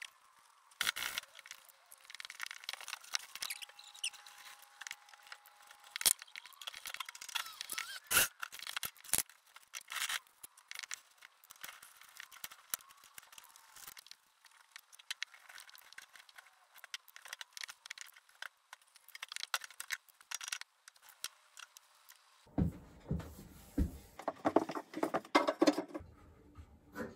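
Hand woodworking tools scraping and cutting wood: irregular scratching with scattered sharp clicks and knocks. About 22 seconds in it turns into heavier, deeper scraping.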